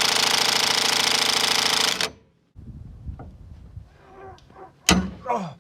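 Impact wrench hammering rapidly on a stuck rear shock bolt, cutting off suddenly about two seconds in. Faint tool knocks follow, then a sharp knock and a short vocal sound near the end.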